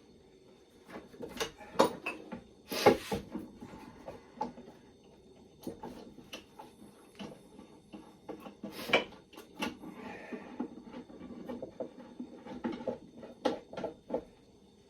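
Plywood box pieces and squeeze clamps being handled and fitted together: an irregular series of sharp wooden knocks and clicks, with a longer scraping rattle about three seconds in and another loud knock about nine seconds in.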